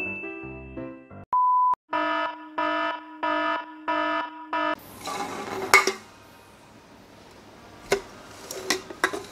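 The last notes of a bouncy tune, then a single short beep. Five pulsing alarm tones follow as a warning sound effect. After that there is a faint hiss with a few sharp knocks and clinks as aluminium soda cans are handled on a table.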